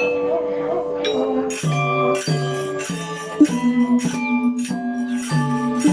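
Balinese gamelan angklung ensemble playing: a few soft held notes, then the full ensemble of struck bronze metallophones comes in about a second and a half in with a steady, ringing run of notes.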